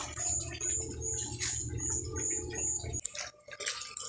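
Evenly repeated short high chirps, about three a second, over a low rumble that cuts off about three seconds in; a few clicks and light splashy noises follow.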